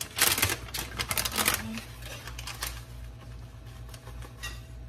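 Hand squeezing and kneading soft cooked-cassava dough in a stainless steel bowl: a quick run of wet, squishy clicks in the first second and a half, then fainter ones.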